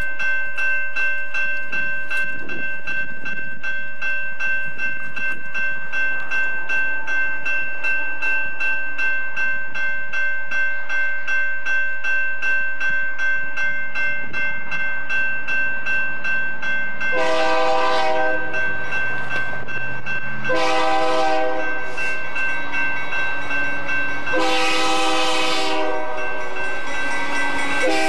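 Railroad grade-crossing bell ringing steadily in a regular pulse throughout. From about 17 seconds in, an approaching BNSF diesel locomotive sounds its air horn in long chord blasts with short gaps, the crossing warning, while the low rumble of the oncoming train builds.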